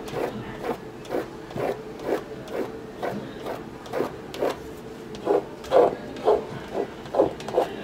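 Repeated scraping strokes of a thin wooden stick dragged through wet acrylic paint on a canvas, about two strokes a second, louder in the second half.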